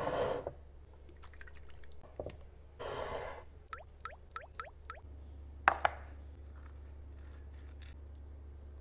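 Liquid dripping from a glass dropper: five quick drops plink about four seconds in, each a short rising note. Two short rustling bursts come before them, and a single sharp click follows.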